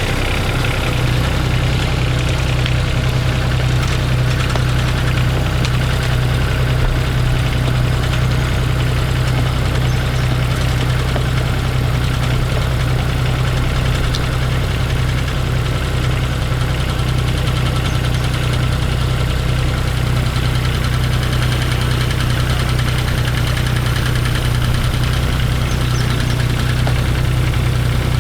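Engine running steadily at a constant speed, a low even hum that does not change.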